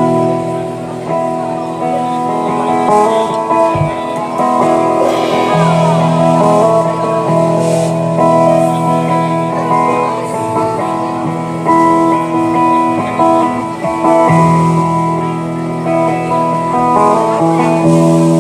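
Live band playing an instrumental passage led by guitars, with sustained chords and melody notes changing throughout.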